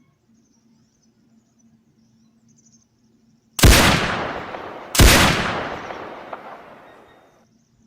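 Two heavy rifle shots about a second and a half apart, each a sharp crack followed by a long rolling echo that fades over about two seconds.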